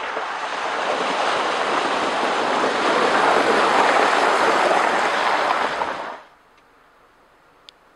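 Jeep Wrangler's tyres splashing and churning through shallow flowing water on a flooded track as it drives past, growing louder as it nears. The sound cuts off suddenly about six seconds in.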